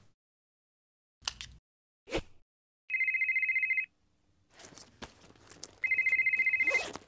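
A phone ringing inside a shoulder bag: a high, rapidly trilling ring about a second long, heard twice with a pause between. Rustling and rummaging through the bag begins before the second ring, and two brief noises come before the first.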